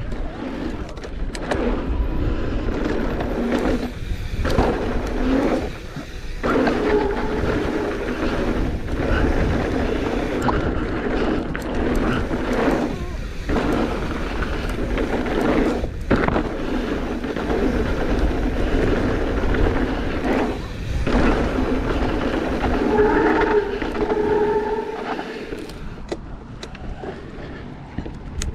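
Mountain bike riding a dirt trail: tyres rolling over rough ground and the bike rattling, with wind rumbling on the microphone. There are several brief dips and a short squeal near the end.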